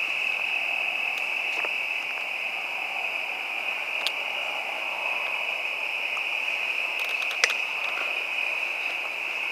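Steady, high-pitched chirring of a crickets' night chorus, with a couple of sharp clicks about four and seven seconds in.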